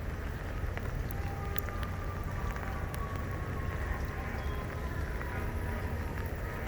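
Light rain falling, with a few faint scattered raindrop ticks over a steady low rumble.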